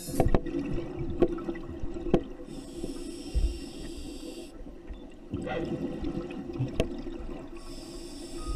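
A scuba diver breathing underwater through a regulator: a hissing inhalation of about two seconds, then a bubbling exhalation, and another inhalation starting near the end, with scattered sharp clicks.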